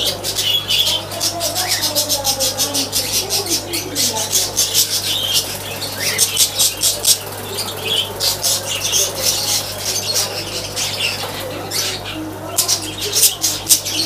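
Many small birds chirping in a dense, rapid chatter, over the steady low hum of an aquarium air pump.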